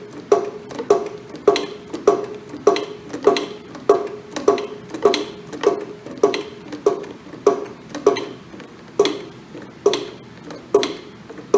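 Shop press being worked by hand to pull a dry cylinder sleeve from a Ford tractor block: a steady series of metallic clanks, about one and a half a second, each with a brief ring.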